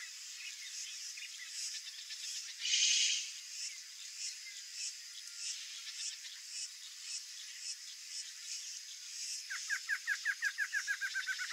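Wild animal calls: a rapid trill of about nine notes a second, falling in pitch and lasting about two seconds near the end, with a short hiss about three seconds in and faint regular ticking in between.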